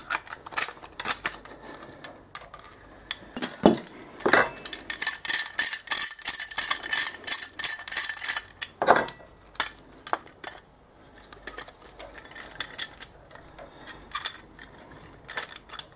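Metal clinks and knocks from a steel G-clamp being unwound and handled on a motorcycle front brake caliper, with a quick run of ringing clinks in the middle.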